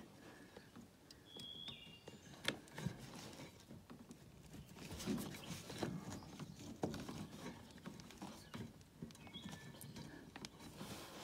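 Faint, scattered clicks and light knocks from plastic air line and a brass quick-connect fitting being handled and pushed together by hand.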